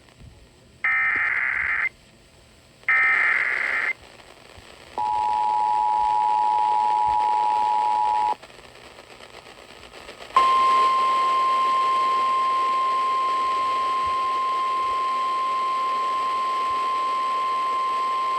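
Emergency Alert System alert tones for a severe thunderstorm warning. About one and three seconds in come two one-second bursts of the screeching SAME digital header. About five seconds in the two-tone EAS attention signal sounds for about three seconds. From about ten seconds in, after a short pause, the single steady weather-radio warning alarm tone holds on.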